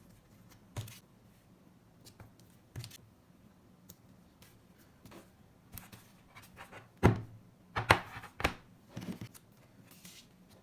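Hands handling a screen protector and its plastic packaging: scattered rustles and clicks, with a cluster of louder taps and crackles about seven to nine seconds in.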